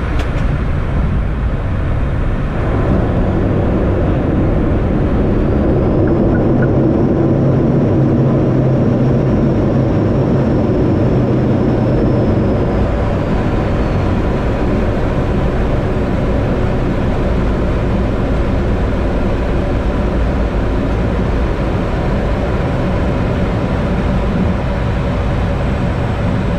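Cockpit noise of an ATR turboprop airliner on the runway: its engines and propellers drone steadily, getting louder about two and a half seconds in.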